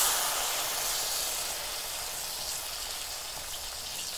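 Chile-coated tortilla frying in hot oil on a comal: a steady sizzle that eases off gradually.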